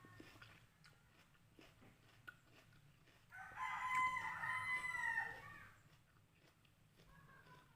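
A rooster crows once, one long call of about two and a half seconds starting a little over three seconds in.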